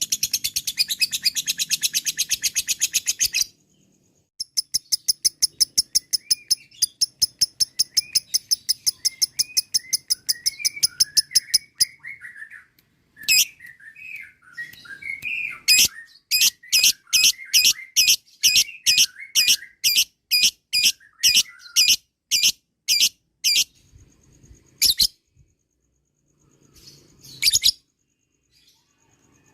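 Lovebird giving its long 'ngekek' chatter: a rapid, evenly paced series of shrill chirps, broken by a short pause about four seconds in. A softer warbling chatter runs beneath it in the middle, and from about sixteen seconds the chirps come slower, about two a second, ending in a few single calls.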